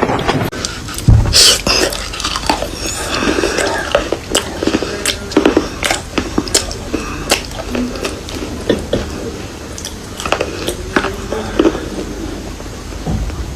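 Close-up crunching as a person bites and chews dry, brittle edible earth: irregular sharp cracks and crackles as pieces snap between the teeth.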